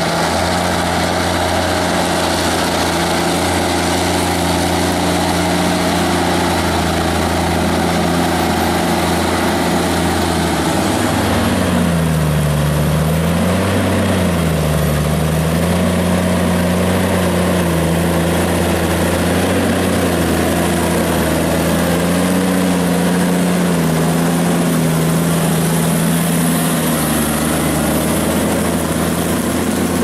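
Claas Xerion 3800 tractor's diesel engine running steadily under load in field work. About a third of the way through the sound changes to the tractor pulling a mounted plough, its engine pitch wavering up and down for a few seconds before settling to a steady drone.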